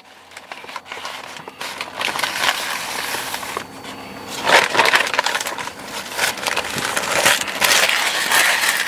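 Paper takeout bag and fry container rustling and crinkling as they are handled, a run of irregular crackles that gets louder about four and a half seconds in.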